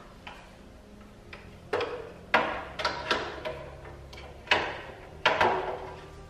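Containers and food being set down and moved around inside a fridge: about half a dozen sharp knocks and clatters on shelves and drawers, irregularly spaced.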